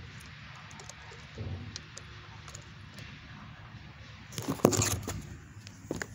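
Muffled rustling and small clicks of a phone rubbing against clothing while its owner walks, then a loud burst of handling noise about four and a half seconds in as the phone is taken out.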